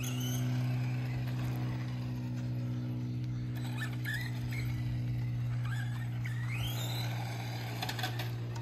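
Electric motor of an R/C dirt modified car whining up in pitch several times as it is throttled around on concrete, over a steady low hum.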